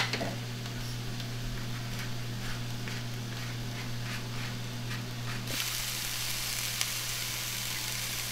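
Sliced zucchini and peppers sizzling in a cast-iron skillet, over a steady low hum, with faint repeated ticks of a pepper mill being ground over the pan in the first few seconds. The sizzle grows louder about five and a half seconds in.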